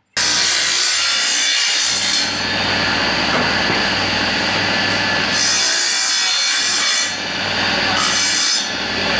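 Table saw with a circular blade set in a wooden bench, running and cutting a long wooden strip as it is fed along the blade. A steady motor hum sits under the cutting noise, which swells and eases several times as the wood moves through.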